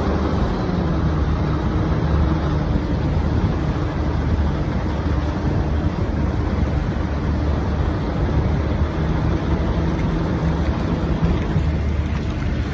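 Semi-truck driving on the highway: a steady low engine drone under constant tyre and road noise.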